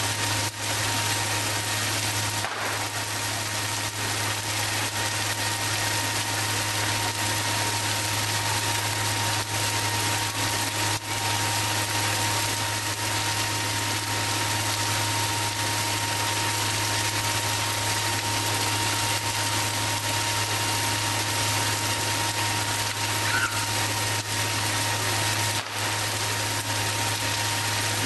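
Large log bonfire burning: a steady rushing noise with a constant low hum underneath.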